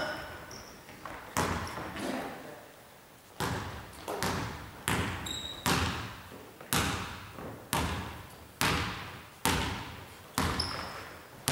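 Basketball dribbled on a wooden gym floor, bouncing about once a second, each bounce echoing through the hall. A few short high squeaks, typical of sneakers on the floor, come between the bounces.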